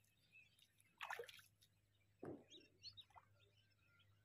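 Two small splashes as a frog lure is twitched on the water's surface, about a second in and again just after two seconds, with faint bird chirps.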